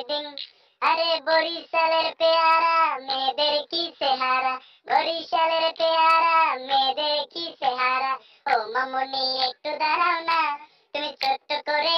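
A high, child-like voice singing a repetitive novelty chant, 'ti-ding-a-ti-ding-a-pom-pom', in short phrases broken by brief gaps.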